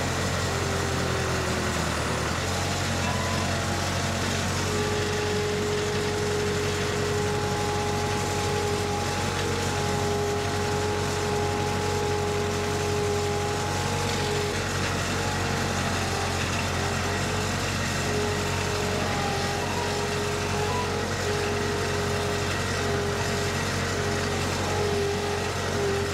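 Skid steer loader's engine running steadily under way, with a constant whine above the engine note.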